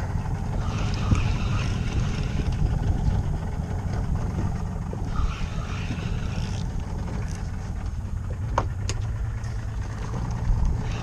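Boat engine running steadily at low speed, a low rumble under faint wind and water noise.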